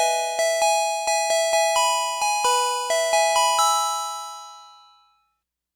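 Kintetsu limited express manual onboard chime: a run of about a dozen bell-like struck notes at an uneven pace, each ringing on. The last note dies away about five seconds in. This is the conductor-played chime that signals an onboard announcement.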